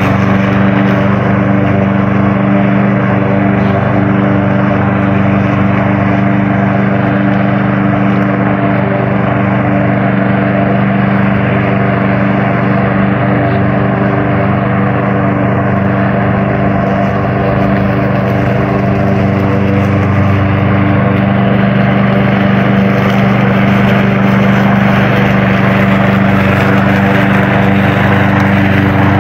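Evatech robotic lawn mower running steadily on autopilot, a constant hum with no change in pitch as it drives across the grass.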